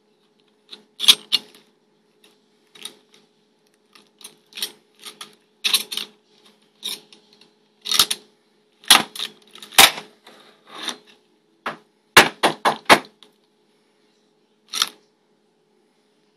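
Copper finger plates and steel blades of a homemade Freddy Krueger glove clacking and clinking as the fingers are flexed: irregular sharp clicks, single and in quick clusters, over a faint steady hum.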